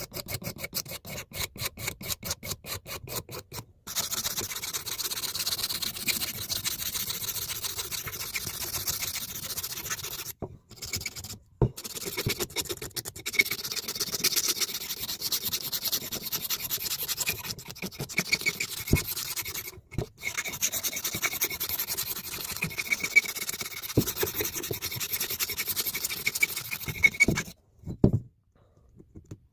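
The handle of a blacksmith's punch being cleaned up with abrasive. It starts as quick back-and-forth rubbing strokes, then about four seconds in becomes an almost continuous scrubbing with a few short pauses, and stops near the end.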